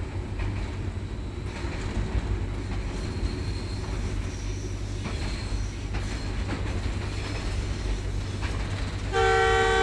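Passenger train carriages rolling past with a steady low rumble and a few brief, faint high wheel squeals. About nine seconds in, a loud train horn starts and is still sounding at the end.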